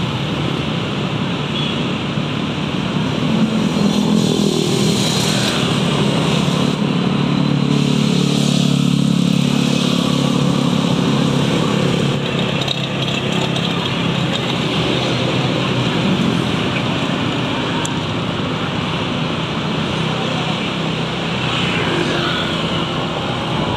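Road traffic heard from a moving vehicle among motorcycles: steady engine, tyre and wind noise. A louder engine drone sits over it from about three seconds in until about twelve seconds in.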